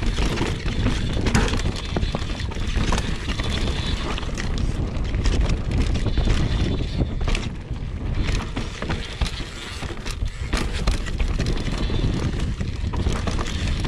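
Mountain bike riding down a dirt singletrack: knobby tyres rolling over dirt and roots and the bike rattling over bumps, with a steady wind rumble on the microphone.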